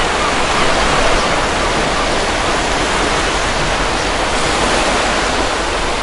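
Ocean surf washing onto a beach: a steady, even rush of breaking waves with no single crash standing out.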